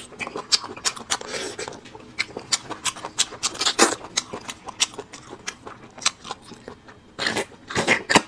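Close-miked slurping and sucking of marrow out of cut marrow-bone sections, with wet lip smacks, clicks and chewing in irregular bursts, a few longer slurps about four seconds in and near the end.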